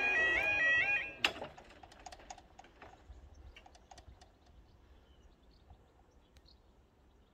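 Level crossing warning alarm warbling in its repeating rising two-tone pattern, cutting off about a second in once the barrier is down. A sharp clunk follows, then a scatter of faint light clicks and ticks.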